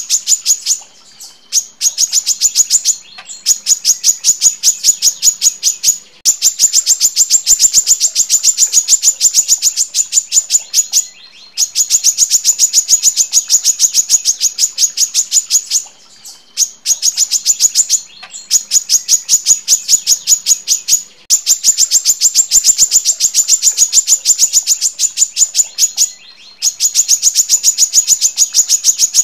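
Female brown-throated sunbird singing long, dense runs of rapid, sharp high notes in an even stream, each run lasting several seconds with brief pauses between them.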